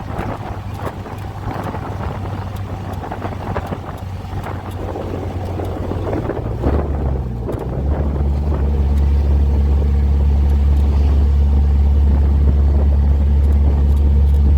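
Vehicle engine running on the move, a steady low drone that shifts in pitch about halfway through and then settles into a louder, deeper steady note.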